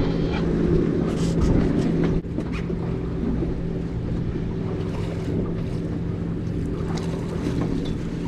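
Boat engine running with a steady hum, under wind noise on the microphone and the wash of water; the sound drops a little about two seconds in.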